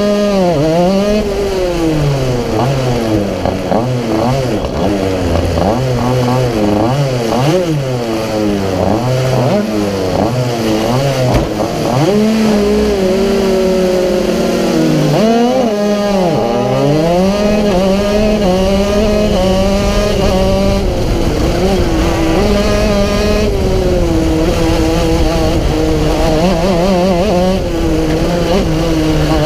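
Racing kart engine heard on board, at the driver's seat, its revs rising and falling over and over as the kart is driven around the track, then holding steadier in the second half.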